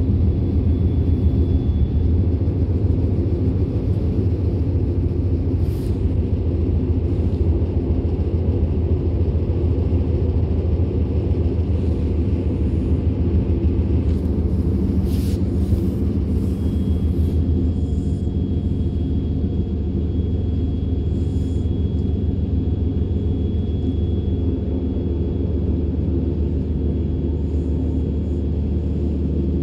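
DB class 425 electric multiple unit running, heard from inside the passenger car: a steady low rumble of wheels and running gear on the track. A thin steady high whine comes in during the second half, and there is a single sharp click about fifteen seconds in.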